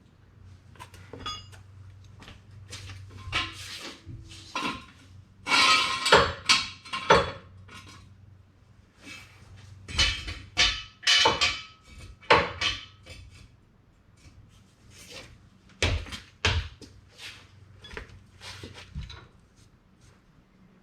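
Irregular clanks, knocks and rattles of metal parts being handled. Some ring briefly, and they come in loud clusters about a third and about halfway through.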